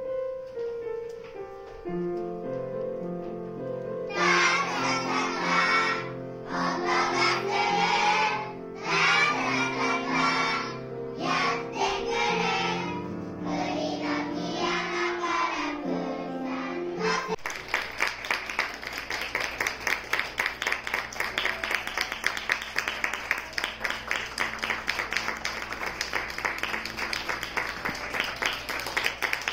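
Kindergarten children singing together in bursts over a keyboard accompaniment of held, stepping notes. About seventeen seconds in, the music stops abruptly and steady applause from the audience takes over.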